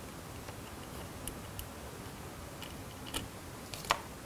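A few faint, scattered metal clicks and ticks as a small valve-core tool unscrews and lifts out the core of a bicycle inner tube's Presta valve, the sharpest click near the end.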